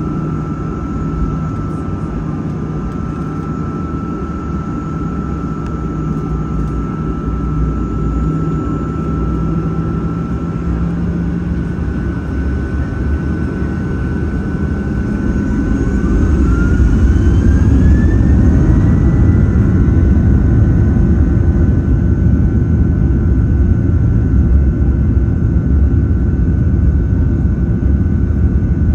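Boeing 737-800's CFM56-7B jet engines heard from inside the cabin, running steadily and then spooling up past the middle: a whine rises in pitch and the rumble grows louder and stays up, as thrust is brought up for takeoff.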